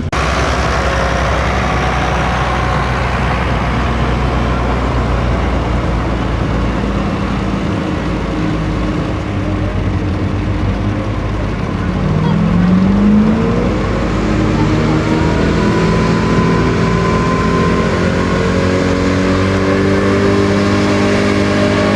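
Pickup truck engine running hard while pulling a weight-transfer sled on a dirt track. A rough, steady engine drone; about twelve seconds in the engine revs up, then holds a steady high note under load.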